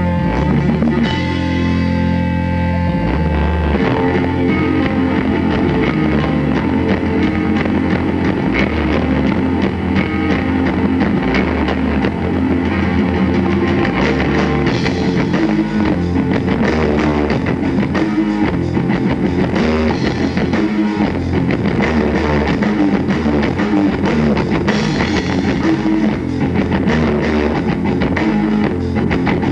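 A rock band playing live: a held electric guitar chord rings for the first few seconds, then drums and electric guitars come in together and drive on steadily.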